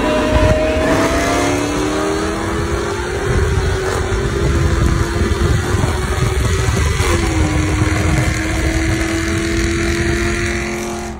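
2015 Mustang GT's 5.0 V8 on an E85 tune at full throttle in a roll race. The engine note climbs steadily, drops sharply at an upshift about seven seconds in and then pulls again, over heavy wind and road noise.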